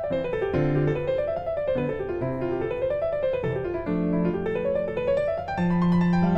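Background piano music: quick rising and falling runs of notes over held bass notes.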